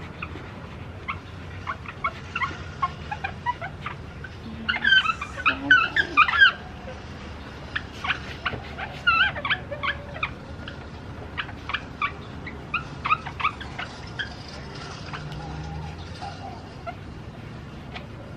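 A pad rubbed by hand over a plastic car headlight lens, making irregular bursts of short, high, gliding squeaks. The loudest bursts come about five seconds in.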